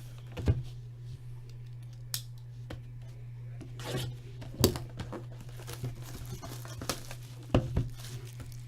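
Cardboard and plastic packaging of a sealed trading-card box being torn open and handled, with scattered sharp clicks and rustles, the loudest about halfway through and near the end, over a steady low electrical hum.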